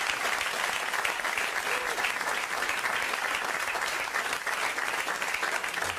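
Studio audience applauding steadily, a dense even patter of many hands clapping.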